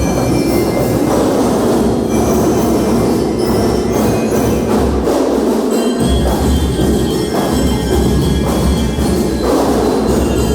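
Marching band playing: steady drumming under a high, ringing bell-lyre melody.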